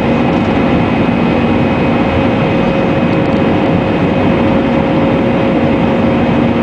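Airbus A319's CFM56 turbofan engines and airflow heard inside the cabin over the wing as the airliner climbs out after take-off: a loud, steady roar with a few steady hums and a faint whine running through it.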